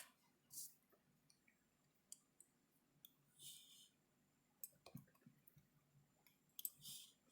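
Faint scattered clicks and three short swishes from an adhesive tape runner being tried on paper; the runner has run out of adhesive.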